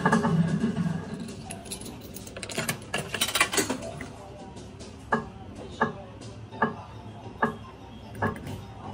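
Bar video slot machine: its game music dies away, then a dense metallic rattle and clicking while coins go in and the credit rises to one euro. After that comes a run of five short, evenly spaced clicks, a little under a second apart.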